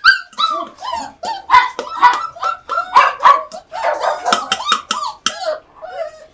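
Puppies yipping and whining over and over in short, high cries that rise and fall, eager for the food being dished out above their crate, with sharp clicks among the cries.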